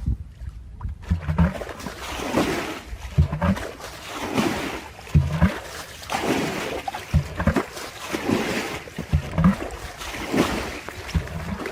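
Water splashing and sloshing in a steady rhythm, about once a second, each stroke starting with a short low thump.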